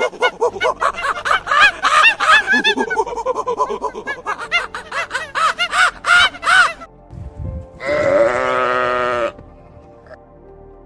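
A fast run of short, repeated arched calls for about seven seconds, then a single long bleat about eight seconds in.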